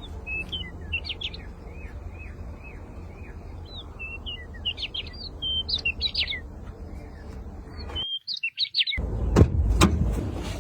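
Small birds chirping and twittering in short quick phrases over a steady low rumble. Just before the end the sound drops out briefly, then loud low thumps begin.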